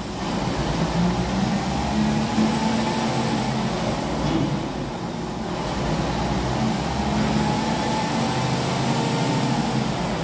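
Mobile crane's diesel engine running steadily, with a faint wavering whine above the low hum.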